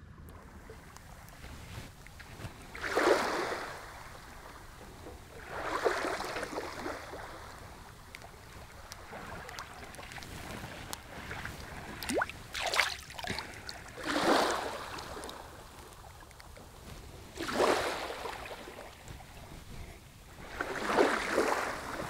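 Shallow seawater washing and sloshing in short surges every few seconds, with a few quick splashes about halfway through, over a low steady wind rumble.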